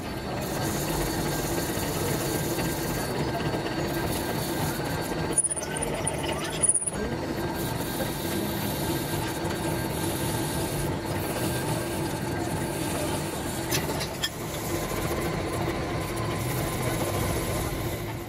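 Pillar drill running and boring a hole through the flange of a cast truck wheel hub: a steady motor hum with the grinding of the bit cutting metal. The sound breaks off briefly twice, about a third of the way in.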